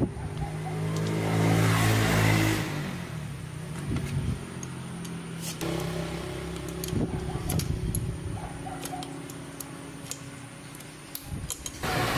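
A motor runs, loudest for a second or two near the start and fainter later, with scattered sharp metal clicks and clinks.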